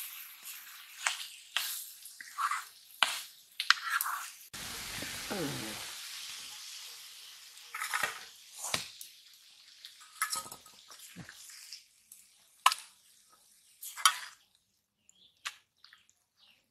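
Metal ladle scraping and clinking against a kadai and a stainless steel bowl as cooked green jackfruit curry is scooped out, in many short scrapes and knocks. A hiss of frying runs under it and fades out about two-thirds of the way through.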